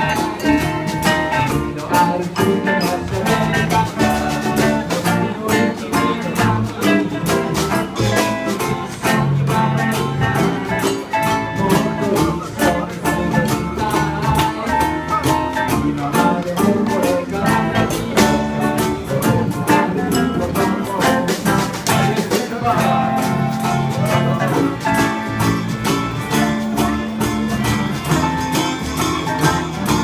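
Live acoustic band playing an upbeat song: ukuleles and guitar strummed in a steady rhythm over upright bass and hand percussion.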